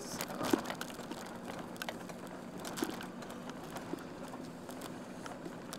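School van running slowly, heard from inside the cabin: a steady low hum with scattered irregular clicks and light rattles.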